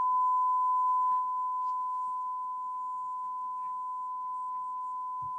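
Steady single-pitch test tone: the signal generator's modulation, received by the Marantz SR1000's FM tuner at the top of the band and played back with little distortion. It drops a little in level about a second in.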